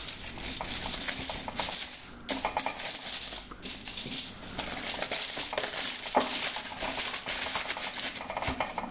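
Aluminium foil crinkling and rustling irregularly as a burrito is rolled up and wrapped tightly in it, over background music.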